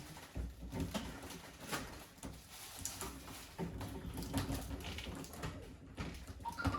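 Scattered light knocks and rattles of things being handled.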